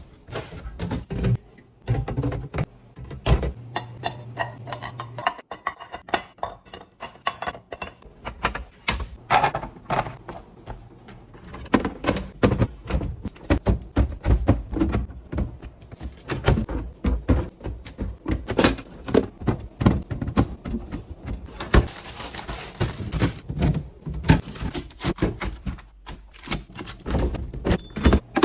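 Containers, jars and bottles being set down, slid and clicked into place on fridge shelves and door bins: a dense, uneven run of taps, clicks and knocks, with a short rustling hiss about two-thirds of the way through.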